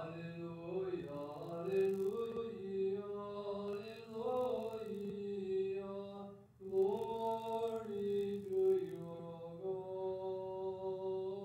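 Greek Orthodox funeral chant: one male voice chanting a slow, drawn-out melody without accompaniment, holding long notes. It breaks off briefly for a breath about six and a half seconds in.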